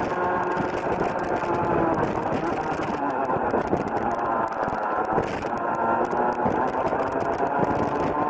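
Rotax Junior Max 125cc two-stroke kart engine at full race revs. Its note drops as the kart slows for a corner over the first few seconds, then climbs again as it accelerates out.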